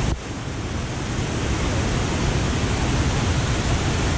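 Waterfalls of the Jacaré Pepira river: a steady, dense rush of falling water. The level drops abruptly just after the start and climbs back within about a second.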